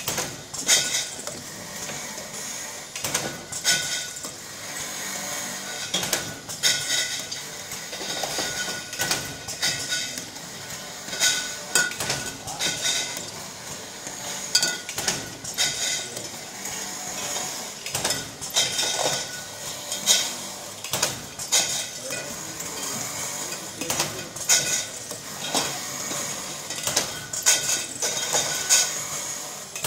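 Automatic wine-bottle labelling machine running: a steady hiss under many irregular clinks and knocks of glass bottles jostling along its steel conveyor.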